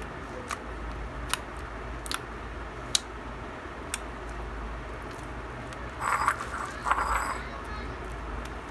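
Homemade slime being pressed and played with by hand for its sound: a few sharp clicks and pops about a second apart, then two short crackly squelches near the end, the loudest sounds here, over a low steady hum.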